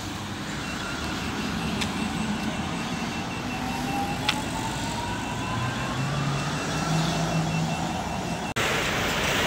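Street traffic passing, with an electric vehicle's motor whine rising steadily in pitch over about three seconds as it pulls away, and a faint high beeping through the first half.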